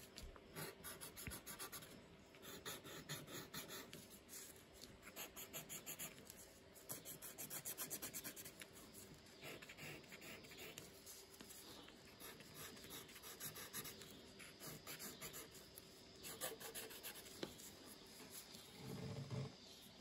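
Wooden barbecue skewer scratching short lines through oil pastel and black watercolor dye on paper. Faint, rapid scratching in spells of about a second each, with short pauses between.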